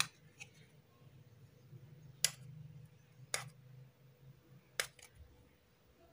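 Fingernails clicking against the edge of an acrylic case panel while picking at its protective paper film: four sharp, faint clicks, irregularly spaced, over a low hum.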